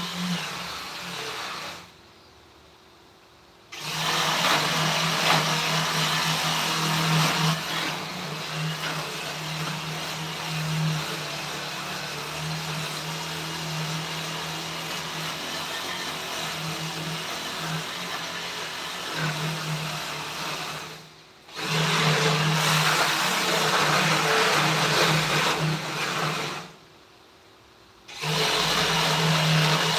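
A small electric power tool running with a steady motor hum and a hiss. It stops about two seconds in, starts again near four seconds, dips briefly around twenty-one seconds, then stops for about a second and a half near the end before running again.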